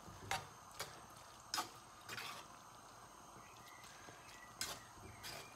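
Metal tongs clicking and scraping against a frying pan as linguine in a creamy sauce is tossed and stirred: a few sharp clicks over a faint hiss.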